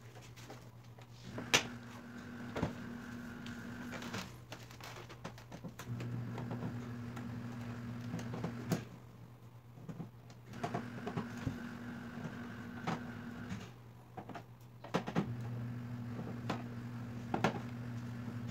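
A hand screwdriver working screws out of an LED TV's plastic back cover: scattered light clicks and knocks of the tool, screws and casing. Under them, a low steady hum comes on four times for about three seconds each.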